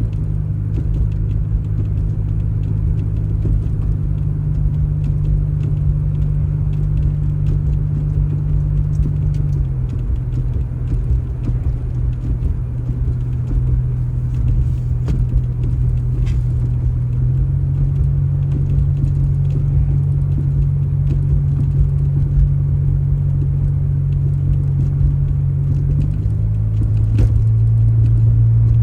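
An engine running steadily, its speed stepping down and up a few times.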